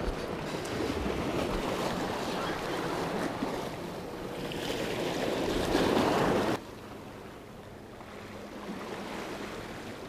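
Ocean surf washing against jetty rocks, with wind on the microphone. The noise swells about six seconds in, then drops off suddenly to a quieter wash.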